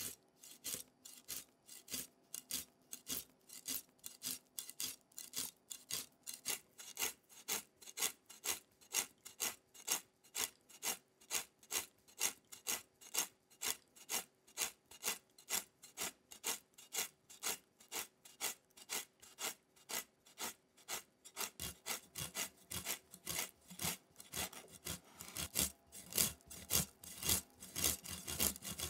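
A kitchen knife scraping the scales off a whole fish in quick, even strokes, about two or three a second, each a dry scratchy rasp. About 21 seconds in, the strokes grow louder and heavier.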